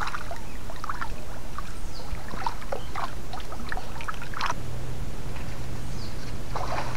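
Rubber boots wading through shallow creek water, with scattered splashes and sloshes. A low steady hum comes in about two-thirds of the way through.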